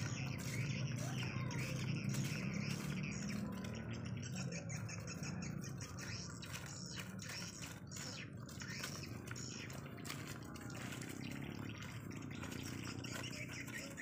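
Swiftlets chirping and twittering, a rapid run of short high-pitched calls that becomes somewhat quieter after about six seconds.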